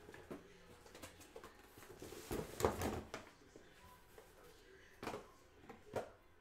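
Cardboard boxes being handled and set down: light knocks and a louder rustling, scraping stretch about two and a half seconds in, then two more knocks near the end.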